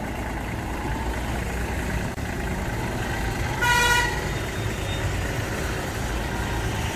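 Kubota compact tractor's diesel engine running low and steady as the tractor creeps down a steel loading ramp off a truck. About halfway through, a vehicle horn gives one short toot, the loudest sound.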